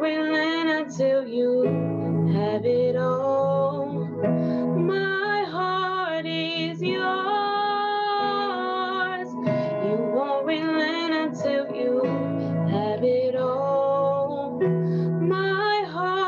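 A woman singing a slow worship song, with held notes and vibrato, over keyboard chords.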